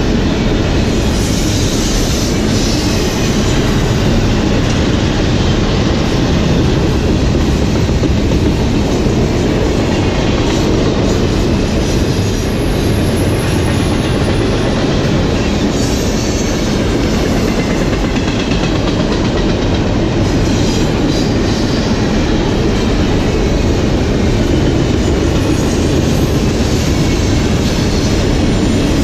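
Double-stack intermodal well cars of a CSX container train rolling steadily past close by: the continuous noise of steel wheels on rail, with the clatter of wheels clicking over the track.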